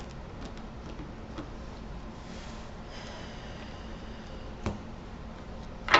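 Quiet room tone with a faint short tap a little over two-thirds of the way through and a sharper, louder click near the end.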